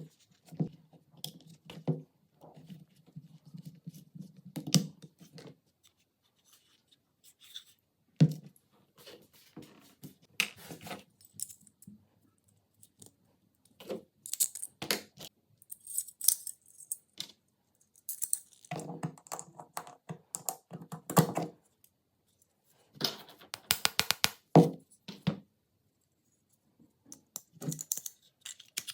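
Irregular clicks and metallic rattling of small metal parts being handled, in scattered clusters with short gaps between.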